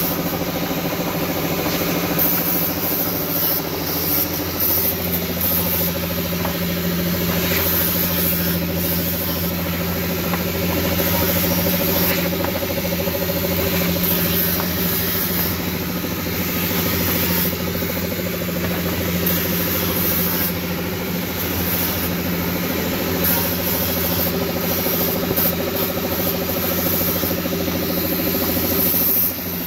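Electric motor of a bench-mounted abrasive grinding disc running steadily with a constant hum, with irregular rasping over it as brake pads are worked against the disc.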